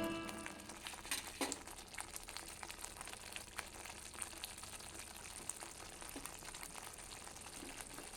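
Faint sizzling and bubbling of food cooking in a pan, a steady soft hiss dotted with small pops and crackles.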